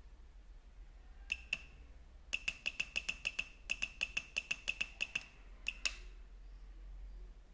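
Sharp electronic ticks from an RC truck sound unit's small speaker: two ticks, then a fast run of about six ticks a second for roughly three seconds, then two more.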